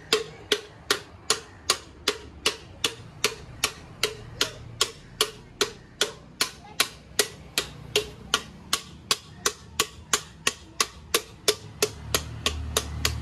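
A long bar pounding down inside an aluminium pressure cooker, about two and a half evenly spaced metallic knocks a second, each with a short ring. The cooker's mouth is being hammered back into shape so the lid seals, because steam was escaping at the sides and the cooker would not whistle.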